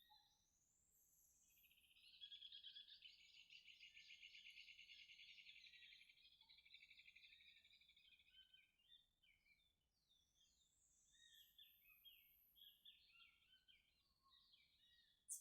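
Faint birdsong: a rapid, buzzy trill of quick repeated notes lasting about five seconds, followed by scattered short chirps. A single sharp click comes at the very end.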